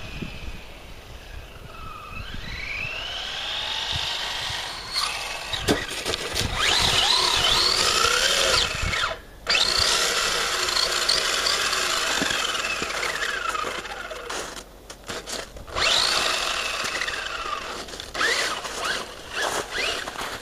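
Brushless motor and drivetrain of a Traxxas Stampede 4x4 RC truck whining, the pitch rising and falling over and over as the throttle is worked. The sound drops out briefly a few times, about halfway through and again a little later.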